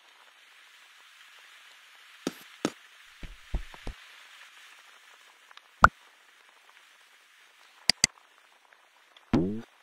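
Scattered sharp clicks and knocks over a faint steady hiss. The quick pair of clicks about eight seconds in is a mouse-click sound effect for an on-screen subscribe button. Just before the end a short sound falls in pitch.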